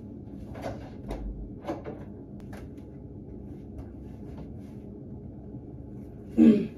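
Quiet room tone in a small room, with a few soft knocks and clicks in the first few seconds from someone moving about. A short, loud vocal sound comes near the end.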